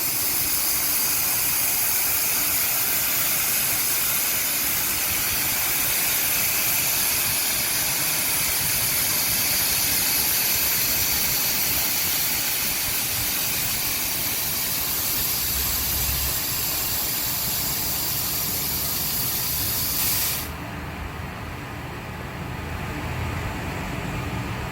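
H860B industrial sweeper running with a loud, steady hiss from its suction and sweeping, over a low motor hum; the hiss cuts off suddenly near the end, leaving only the quieter hum.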